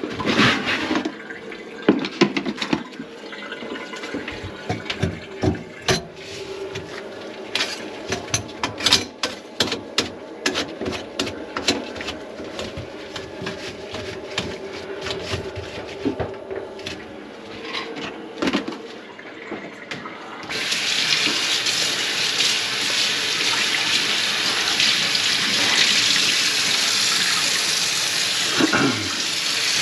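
Scattered knocks and clatter at a kitchen sink, then about two-thirds of the way through a faucet is turned on and water runs steadily into the sink, whose drain line is clogged with grease.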